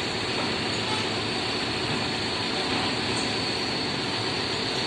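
Steady engine drone mixed with a broad rushing noise, unbroken throughout.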